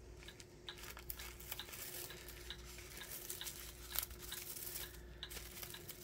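Hands working at the ribbon and wrapping of a small package: faint rustling with many scattered light clicks and ticks, over a faint steady hum.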